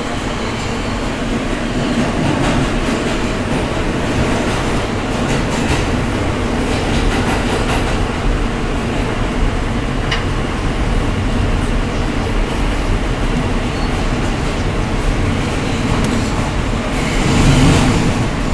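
New York City Subway E train heard from inside the car: the steady rumble of steel wheels on the rails through the tunnel, with scattered clicks of wheels over rail joints. It grows louder about seventeen seconds in.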